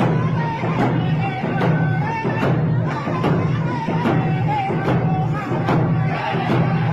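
Algonquin hand-held frame drums struck together in a steady beat, about one stroke a second, with a wavering sung line over the drumming.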